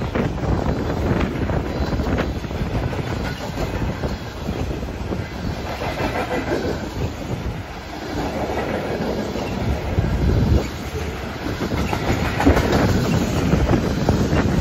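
Freight train cars rolling past: steel wheels rumbling and clicking over the rails as tank cars and covered hopper cars go by.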